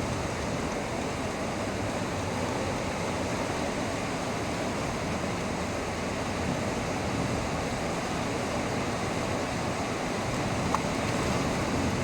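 Heavy thunderstorm rain pouring down steadily as an even, rushing hiss.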